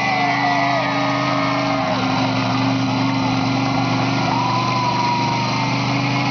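Bear Foot monster truck's engine running with a steady low drone as the truck moves slowly across the field.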